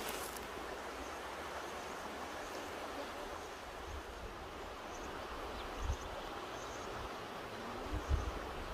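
Mountain river rushing in a steady, even wash of water noise, with a few brief low thumps about six and eight seconds in.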